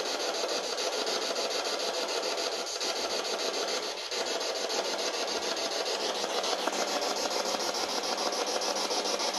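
Spirit box sweeping through radio frequencies: a steady, rapidly pulsing static hiss.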